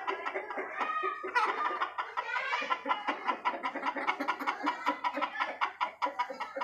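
Aseel chickens clucking in a fast, unbroken run of short calls. The keeper takes it to mean the birds have spotted something, perhaps a kite overhead.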